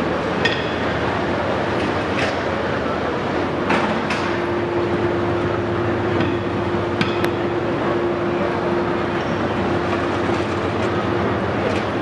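Steady loud rumble of running foundry equipment during a molten-iron pour, with a steady hum that comes in after about three seconds and fades near the end. A handful of sharp metal clinks cut through it.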